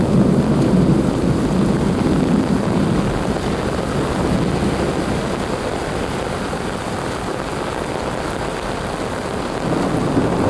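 Heavy rain falling, with wind gusting on the microphone as a low, steady rushing. It is heaviest at first, eases in the middle and swells again near the end.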